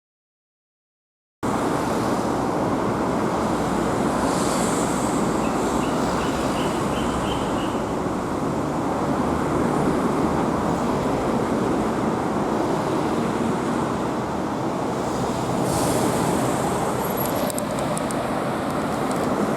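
Steady road traffic noise that starts abruptly about a second and a half in, after silence. About five seconds in comes a short run of faint, high, rising tones.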